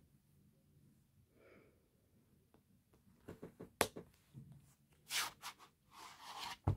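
Handling of a plastic DVD keep case in a cardboard slipcover: a few light clicks and taps, then a brushing slide of card on plastic as the case is drawn out of its slipcover, and a sharp knock near the end.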